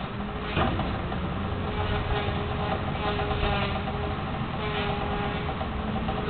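Pontoon boat's outboard motor idling with a steady hum during docking, with a brief knock about half a second in.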